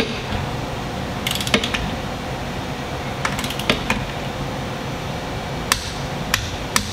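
Socket wrench ratchet clicking in two short quick runs, then three single clicks near the end, as a motor-to-transmission bolt is worked with a long extension.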